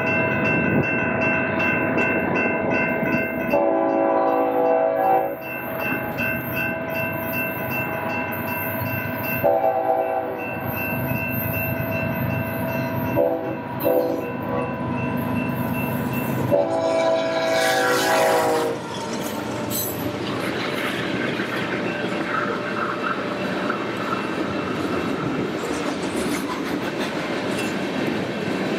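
BNSF diesel locomotive sounding its air horn in four blasts, the third short and the last the longest, in the long-long-short-long grade-crossing signal. The horn gives way to the steady rumble and clatter of loaded freight cars rolling past, with wind noise.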